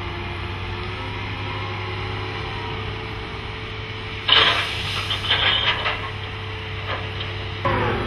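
Diesel engine of a SENNEBOGEN 650 HD crawler crane running with a steady drone. About four seconds in, gravel pours from the bucket onto a stockpile with a sudden loud rattling rush of stones lasting about two seconds.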